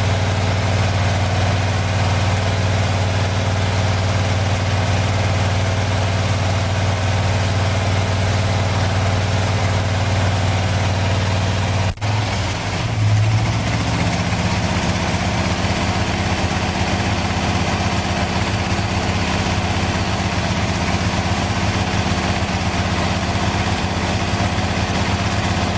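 Pontiac 421 V8, bored and stroked to 462 cubic inches and fed by a Tri-Power setup of three two-barrel carburetors, running steadily. About halfway there is a sudden brief break and a short louder moment, after which it runs steadily at a somewhat higher pitch.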